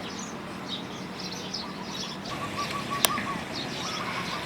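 Small birds chirping in quick repeated notes over steady background noise, with one sharp click about three seconds in.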